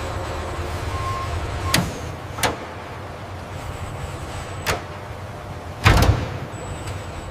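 Factory machinery ambience: a steady low mechanical hum broken by four sharp clanks, the last and loudest about six seconds in.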